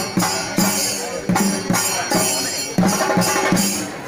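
Kerala Paana ritual percussion music: a steady beat of drum strikes, about two to three a second, over a continuous high wash.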